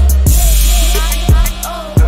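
Background music with a deep bass and a drum beat, and a noisy cymbal-like swell about a quarter second in.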